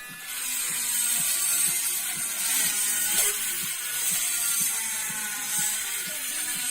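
A small power tool's motor running steadily with a rattling, ratchet-like mechanical clatter.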